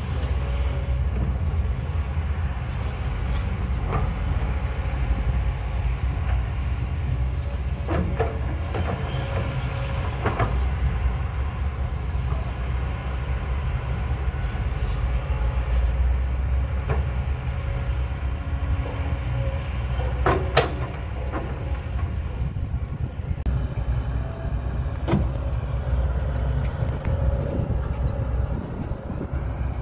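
Kobelco SK200 hydraulic excavator's diesel engine running steadily under digging load, a deep constant drone. A handful of sharp knocks cut through it, the loudest about two-thirds of the way through.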